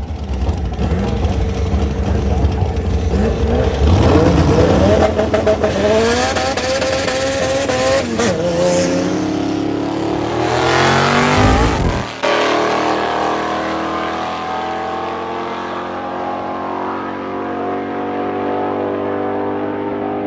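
Drag race cars, a nostalgia altered roadster and a hatchback, launching and running at full throttle down the quarter-mile strip. The engine pitch climbs and drops back at each gear change. About twelve seconds in the sound turns suddenly more distant and steadier, then slowly fades.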